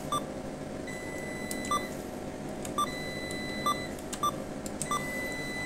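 ATM keypad beeping as PIN digits are keyed in: about six short electronic beeps at uneven intervals, each with a faint key click.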